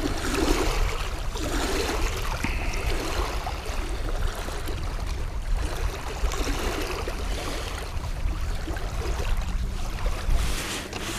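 Wind buffeting the microphone over small waves lapping against a rocky lakeshore, a steady rushing with an uneven low rumble.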